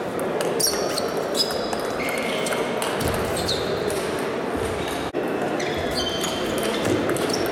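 Table tennis balls struck by bats and bouncing on tables: irregular sharp ticks, each with a short high ring, over the steady murmur of a large sports hall.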